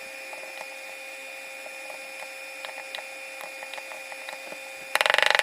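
Battery spot welder joining nickel strip to lithium-ion cells: a steady electrical hum with small ticks as the strip is positioned, then a loud, half-second buzzing weld pulse near the end.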